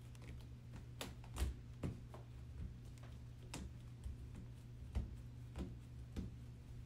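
Plastic cage wall sections clicking and knocking as their pegs are pressed into the holes by hand, in about seven separate light knocks at irregular intervals.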